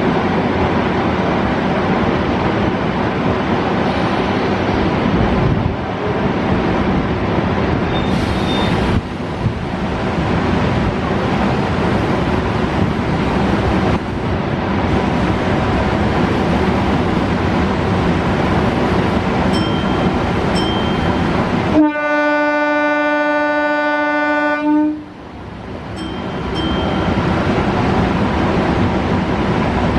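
Steady running noise of a moving electric local train: wheels on rail and rattling, with wind through an open coach door. About two-thirds of the way through, a single-pitched train horn sounds for about three seconds while the running noise drops out, then the running noise returns.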